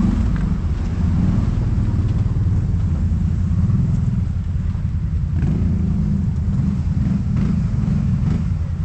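ATV engine running steadily under way, a loud low rumble, with a couple of brief knocks over it later on.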